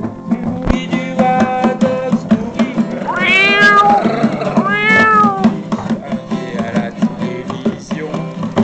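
Acoustic guitar strummed in a steady boogie rhythm. Over it a voice gives two long wails that rise and fall in pitch, about three and five seconds in.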